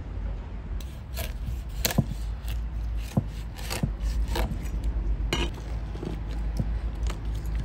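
Knife cutting a whole raw chicken on a wooden cutting board: a string of separate knocks, taps and scrapes of the blade and the bird against the board, over a steady low rumble.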